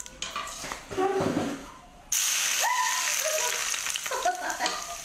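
Hot oil poured over boiled lobsters topped with dried chilies and shredded aromatics, starting with a sudden loud sizzle about two seconds in that keeps hissing.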